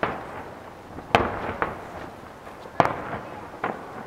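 Fireworks aerial shells bursting in the night sky: five sharp bangs a second or less apart, the loudest near three seconds in, each fading away in a trailing rumble.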